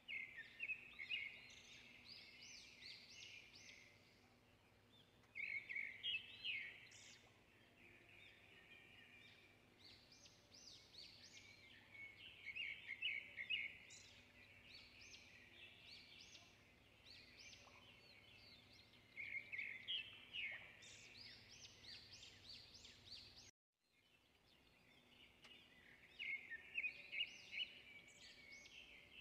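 Birds chirping in short bursts of rapid repeated notes that come back every few seconds, over a faint steady hum.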